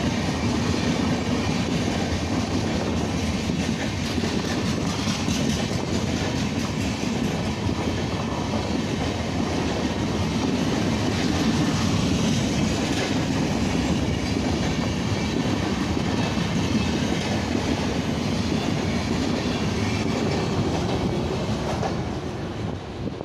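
Passenger coaches of an Indian Railways express rolling past close by: a steady rumble of wheels on track, with the wheels clattering over the rails. The sound falls away near the end as the last coach, the luggage-brake van, passes.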